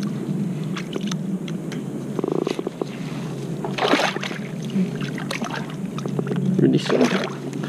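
Shallow stream water sloshing and splashing around hands holding a peacock bass under the surface during its release, with louder splashes about four seconds in and again near the end.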